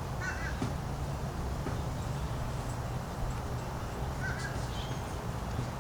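Outdoor ambience: a steady low rumble with two short bird calls, one just after the start and one about four seconds in.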